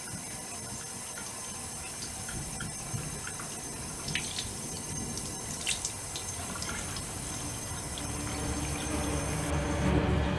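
Bathroom sink faucet running steadily, with small splashes as hands scoop water over a face. Near the end the running water cuts off and a low rumble swells up.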